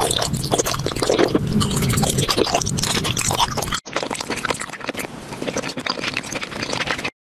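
Dense scraping, crackling noise full of rapid clicks, in two stretches, each cut off abruptly, the break coming about halfway through.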